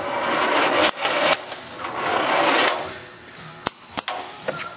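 Automatic tube load/unload feed system of a Duraturn 1530 lathe cycling: a rushing hiss lasting about three seconds, broken by sharp metallic clicks, then a few quick sharp clicks and clanks near the end.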